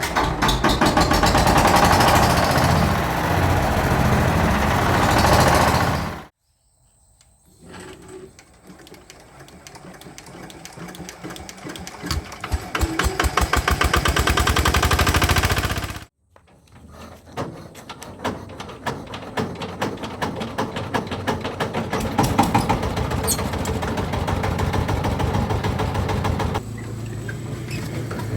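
Small diesel engines being hand-crank started and running, in separate clips joined by abrupt cuts: first a fast steady chugging beat, then after a cut an engine's beat growing quicker and louder as it is cranked up to speed and fires, then after another cut a second engine picking up and running.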